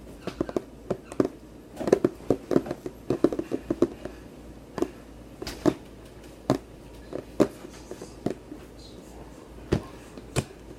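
Irregular clicks, taps and light knocks of hands handling small objects on a table, most of them bunched about two to four seconds in.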